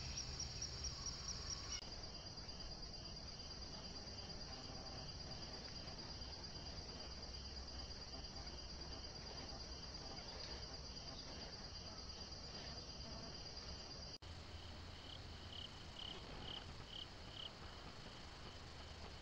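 A chorus of insects such as crickets: a steady high trill with a slower row of rhythmic chirps beneath it. The chorus changes abruptly about two seconds in and again near fourteen seconds, where different camera recordings are spliced.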